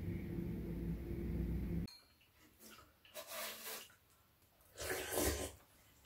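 A steady low hum that cuts off abruptly about two seconds in. After it, a quiet room with two brief, noisy eating sounds as grilled fish is eaten by hand: chewing and lip-smacking.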